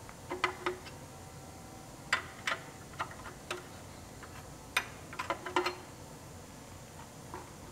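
Combination wrench tightening a new oxygen sensor into the exhaust: light metal clicks and ticks, about a dozen at irregular spacing and some in close pairs, as the wrench is worked on the sensor's hex.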